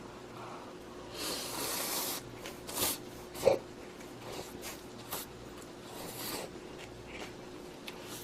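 Instant ramyeon noodles slurped up twice, with short wet mouth clicks and a sharp smack in between as they are chewed.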